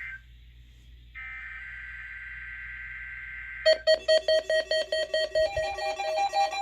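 NOAA Weather Radio SAME header: a harsh data screech of two alternating high tones, stopping briefly and then resuming for about two and a half seconds. Then weather alert radio receivers start alarming: loud rapid beeps, about four a second, with a second receiver's beeps joining near the end as they are triggered by the test signal.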